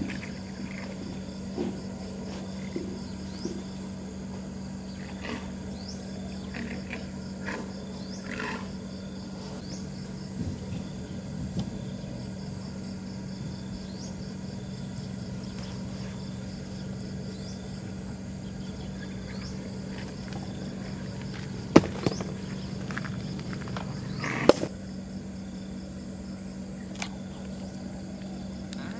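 A steady low hum under quiet outdoor ambience, with a few faint short chirps and two sharp knocks about three seconds apart in the last third.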